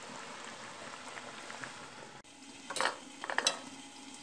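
Pork leg sizzling and bubbling in a little water in an aluminium pot. About halfway through the sound breaks off, and then a metal lid clanks against the pot a few times, the loudest sounds.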